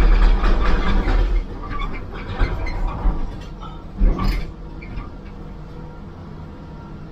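CAT hydraulic excavator heard from inside its cab: the engine runs hard at first, then drops to a lower, steadier run after about a second and a half. Scattered knocks, with one sharp knock about four seconds in.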